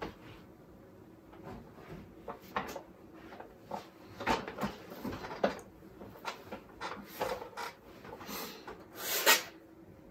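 Handling noise: scattered bumps, rustles and clicks as a person settles into an office chair and picks up a round plastic push-button from a desk. The loudest is a short rustle about nine seconds in.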